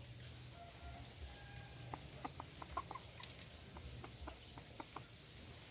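Chickens clucking faintly: a quick run of short clucks about two seconds in, then a few more spaced out toward the end.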